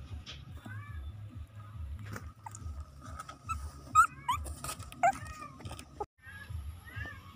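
Newborn puppies squeaking and whimpering: many short high cries that slide up and down in pitch, the loudest about four and five seconds in, with a few sharp clicks and scratches.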